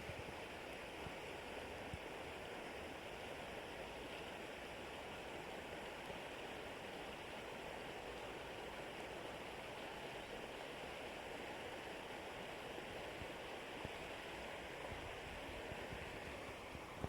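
River water flowing: a steady, even rush of a stream.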